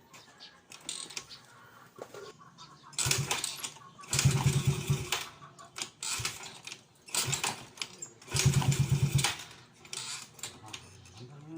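Yamaha Mio Sporty scooter's single-cylinder four-stroke engine cranked in about five short bursts, each a second or less, with a fast even pulse, not settling into a steady run. It is hard starting, which the owner puts down to a sunken, leaking valve.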